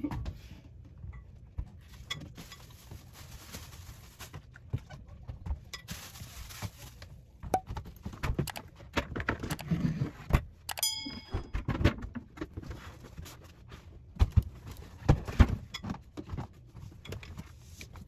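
Wooden knocks, thuds and scraping as a plywood settee-seat lid is lifted out and handled, with stretches of rustling. The heaviest knocks come near the end, and a short ringing chime sounds about eleven seconds in.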